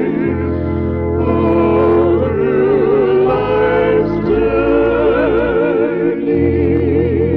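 Slow gospel worship singing: several voices sing sustained, wavering notes with vibrato over long held bass notes that change every few seconds.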